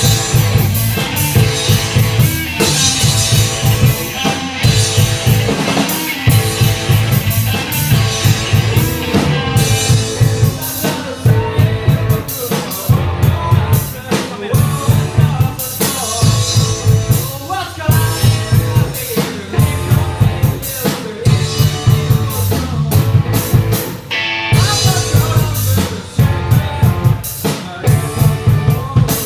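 A rock band playing live: a drum kit keeping a steady beat with a heavy bass drum, guitar and singing over it.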